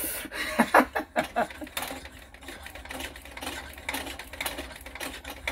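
Vapalux M320 kerosene pressure lantern being pumped, building pressure in the fuel tank: quick, irregular clicking strokes from the hand pump over a steady hiss.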